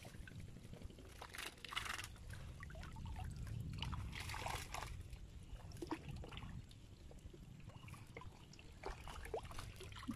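Water sloshing and trickling off a wet mesh ring net trap (china duar) as it is hauled up out of shallow floodwater, with splashy bursts about one and a half and four and a half seconds in and small clicks of the net's frame, over a low rumble.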